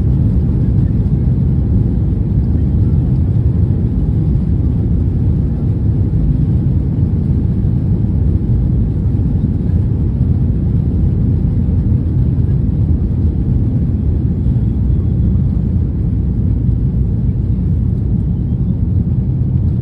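Boeing 737-800's CFM56-7B jet engines at takeoff power, a steady low rumble that holds level without rising or fading.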